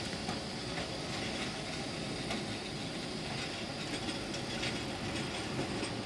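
Long articulated street tram rolling past on its rails: a steady rolling noise with a few faint clicks.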